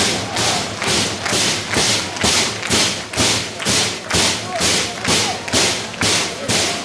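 Rugby crowd clapping in a steady rhythm, about two beats a second, urging on their pack at the scrum.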